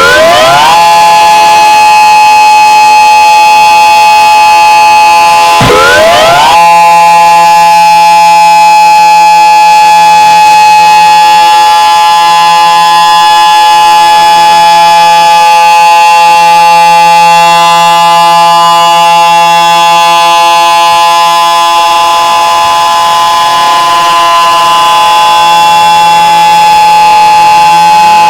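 Very loud emergency alarm siren: its tones sweep up into a steady, many-toned blare at the start and again about six seconds in. From about 22 seconds some of the tones slide down while others keep sounding, with another rise near the end.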